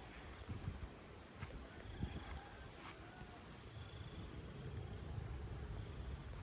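Wind rumbling on the microphone in open fields, with a few faint, short high chirps repeating near the end.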